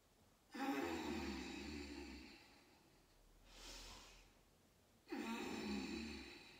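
A woman's audible paced yoga breathing: two long out-breaths of about a second and a half each, with a fainter in-breath between them.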